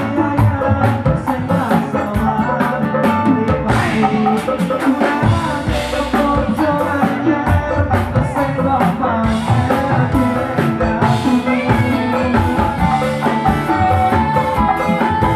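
Live band music amplified through a stage PA: drum kit, electric guitar and keyboard playing steadily, with a male singer singing into a microphone over them.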